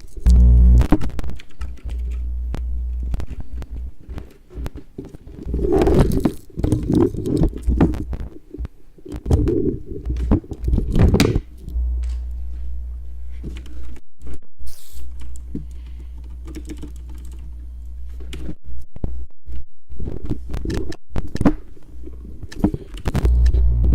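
Computer keyboard typing and mouse clicking: bursts of rapid key clicks with pauses between them, over a steady low hum.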